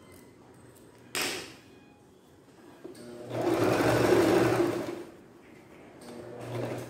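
Domestic electric sewing machine stitching in one fast run of about two seconds, with a quieter stretch of running near the end. A brief rustle about a second in.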